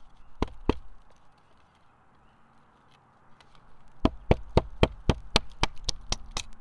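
Sharp strikes on wood: two single knocks about half a second in, then from about four seconds in a quick run of knocks, about four a second.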